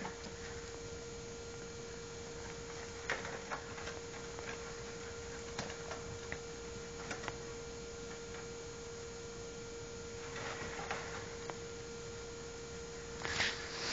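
Scattered light clicks and rustling from a ferret and a Samoyed moving against wire cage bars, with a louder rustle near the end, over a steady electrical hum.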